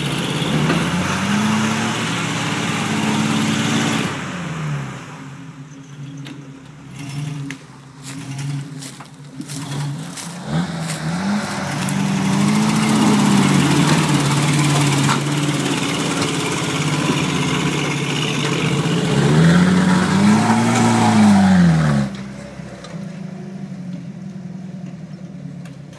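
Engines of a 1975 International Scout and a stuck Jeep pickup revving in surges under load while towing through mud, the pitch climbing and falling three times. Near the end the revving stops and the engines drop to a low idle.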